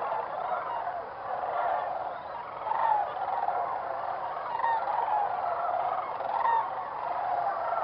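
A large flock of Canada geese and other waterbirds calling all at once in a continuous chorus of many overlapping honks and calls, with no break.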